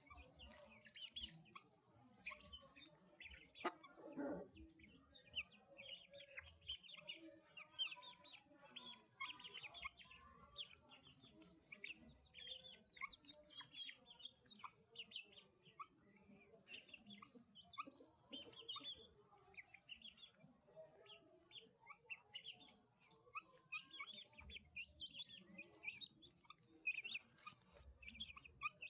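A group of Índio Gigante chicks peeping continuously, many short high cheeps overlapping, with a lower, longer call about four seconds in.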